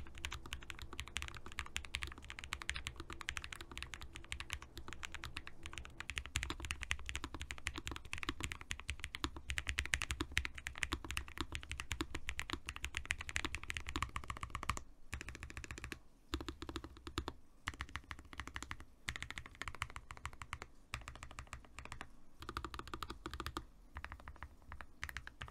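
Typing on Lofree Flow low-profile mechanical keyboards with stock linear switches: a fast, continuous run of keystrokes, broken by a few short pauses in the second half.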